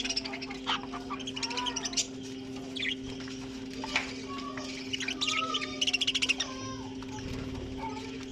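A flock of budgerigars chattering: short chirps, warbles and quick rattling trills, over a steady low hum.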